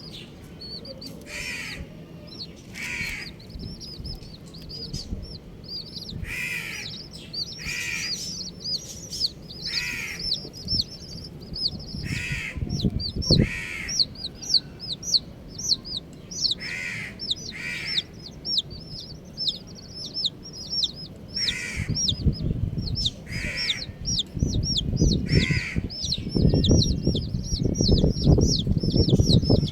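A brood of baby chicks peeping continuously, many short falling peeps overlapping, with louder single calls every second or two. Low scuffling and rustling joins in during the last third.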